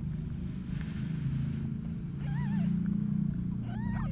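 Newborn kittens mewing: two short, high-pitched mews, one about two seconds in and one near the end, over a steady low rumble.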